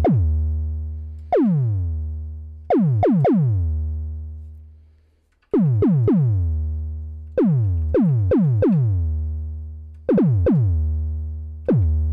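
Moog DFAM analog percussion synthesizer playing a sequenced kick drum pattern in an uneven rhythm. Each hit starts with a quick downward pitch sweep from the oscillator's pitch envelope and settles into a deep low tone that fades out slowly. The hits stop for about a second near the middle.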